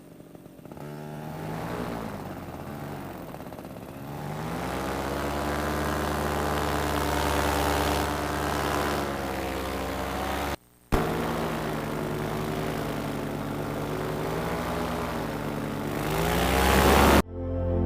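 Paramotor engine and propeller running in flight, its pitch rising and falling as the throttle is worked. The sound drops out briefly about two-thirds of the way through and changes abruptly just before the end.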